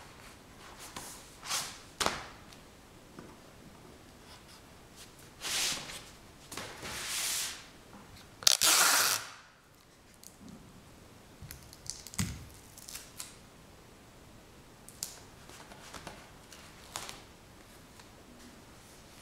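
Close, small handling noises: scattered soft clicks and swishes, with one louder rasping burst about nine seconds in.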